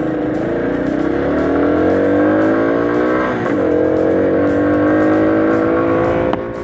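1979 Honda CT90's single-cylinder four-stroke engine pulling the bike up to speed, its pitch rising. A little past three seconds it dips with a gear change and climbs again. Near the end there is a sharp click and the engine note drops off.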